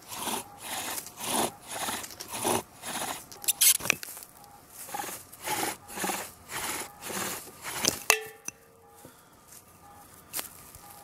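Sycamore bow drill: the spindle grinds in the hearth-board hole with each back-and-forth bow stroke, about two strokes a second. The strokes stop with a sharp knock about eight seconds in. The hole is too shallow and worn, so the spindle slides off.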